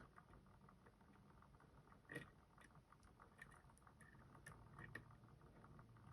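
Faint, irregular clicking of a lock pick working the pins of a Robur safety deposit box lock, lifting the gin driver in pin stack 2 while the lock sits in a false set. One click about two seconds in is a little louder.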